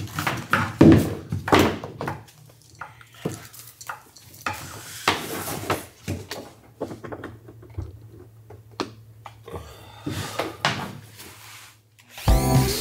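Scattered knocks, clunks and clatter of a corded rotary tool and its cable being handled on a plywood deck, over a faint steady low hum. Music comes in near the end.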